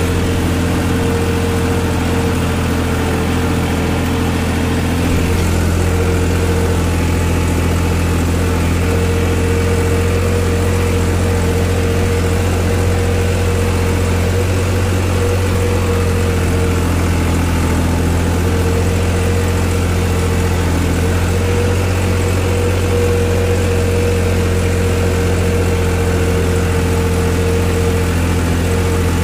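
New Holland 3630 Plus tractor's three-cylinder diesel engine running steadily at full throttle while pulling an eight-by-eight disc harrow, with a steady whine over the engine note. The harrow's load pulls the engine down by roughly 250–300 rpm from its 2000 rpm setting.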